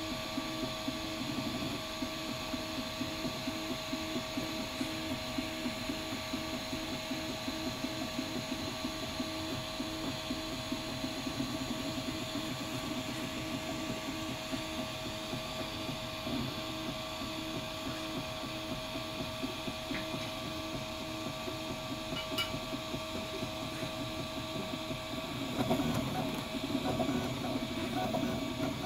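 Ultimaker 3D printer printing: its stepper motors whir in quick, shifting patterns as the print head moves, over a steady hum, growing louder and busier near the end.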